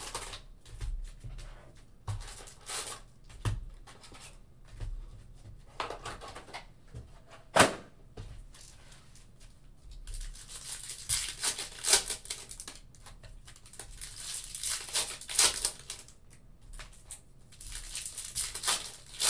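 Foil wrappers of Topps Chrome baseball card packs being torn open and crinkled by hand in scattered bursts, busiest in the second half, with one sharp click about seven and a half seconds in.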